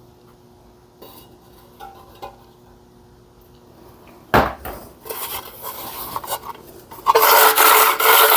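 Metal parts and tools being handled on a small engine. There are faint clicks, then a sharp knock about four seconds in and some clinking and scraping. About seven seconds in, a loud, steady rasping noise begins.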